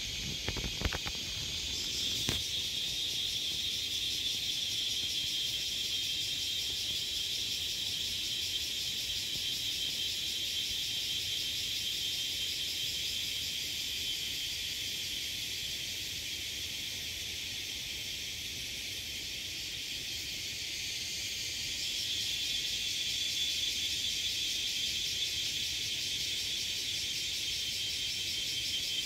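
Steady, high-pitched chorus of forest insects: a continuous shrill drone that grows louder about two seconds in and again about two-thirds of the way through.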